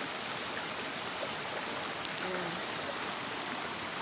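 Shallow mountain creek rushing and splashing steadily over boulders and small cascades.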